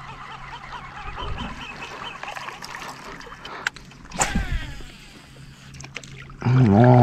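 Cast with a baitcasting fishing reel: a sharp swish about four seconds in, then the reel's spool whirring and falling in pitch as the line pays out. Birds call faintly before it.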